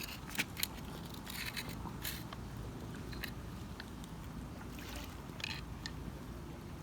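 A spa remote cable is pulled up out of the ground, giving scattered short scrapes and rustles over a steady low hum.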